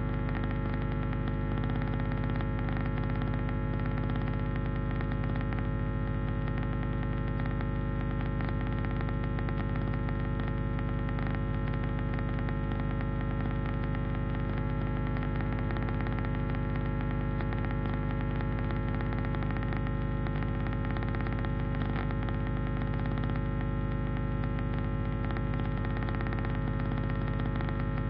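Electrical noise: a steady buzzing hum with many overtones, overlaid with fine crackling static, unchanging throughout.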